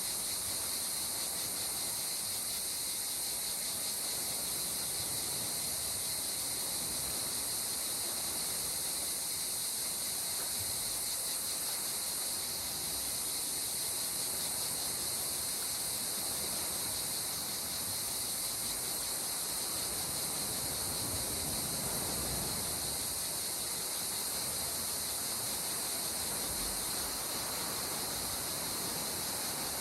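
Steady, unbroken high-pitched insect chorus over a soft, even wash of gentle sea water lapping, which swells slightly about two-thirds of the way through.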